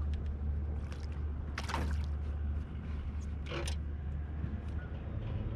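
Water splashing as a small bass is released over the side of the boat: two short splashes, about a second and a half in and again about two seconds later, over a steady low hum.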